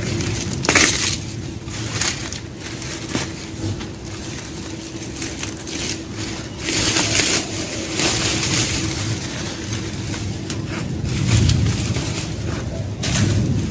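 Dry leaves and stalks crunching and rustling in irregular snaps as dried garden plants are pulled and torn out by gloved hands.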